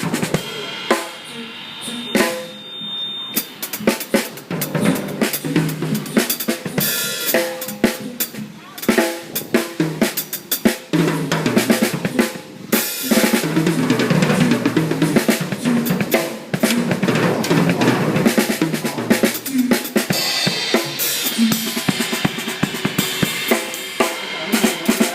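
Drum kit played during a sound check, with bass drum and snare hits; the playing gets louder and denser about halfway through.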